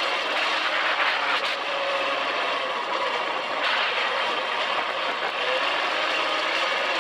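Dune buggy driving over sand dunes: engine running under way under a steady rush of wind noise, which swells about a second in and again a little before four seconds in.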